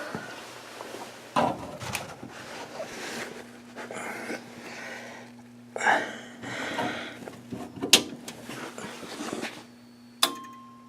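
Irregular rustling and handling noises with sharp clicks close to the microphone, over a faint steady low hum. About ten seconds in, a click is followed by a short steady beep.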